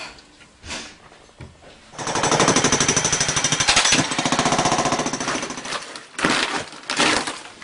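Jackhammer running for about four seconds in fast, evenly repeated blows, starting about two seconds in, then two short bursts near the end. It is breaking out the old basement waterproofing system.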